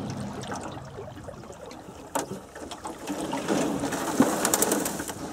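Water splashing and lapping around a small boat, with a single knock about two seconds in and a louder stretch of splashing near the end.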